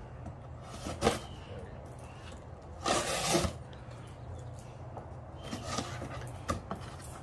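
Knife cutting through packing tape on a cardboard box: a sharp tick about a second in, a louder ripping scrape about three seconds in, then lighter taps and rustles of cardboard.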